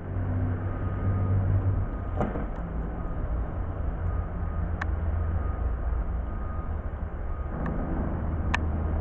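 Steady low vehicle rumble with a hum, with a few sharp clicks: one about two seconds in, one near five, and two close together near the end.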